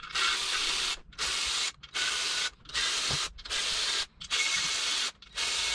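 Ratchet wrench on a 13 mm socket working loose the inner main bearing cap bolts of a 6.2 L LS V8 block: about seven even bursts of rapid ratchet clicking with short pauses between.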